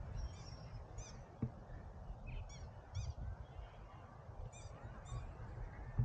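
Faint, short high-pitched animal calls, several times and mostly in pairs about half a second apart, over a steady low rumble.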